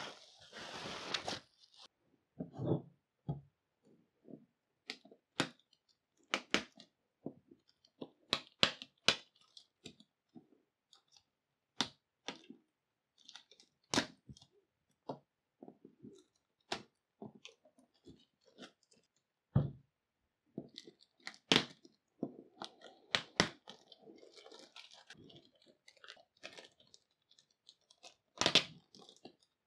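Bubble wrap rustling as it is pulled off a box, then scattered sharp crackles and taps as packing tape is picked and peeled from the cardboard and the plastic-wrapped box is handled.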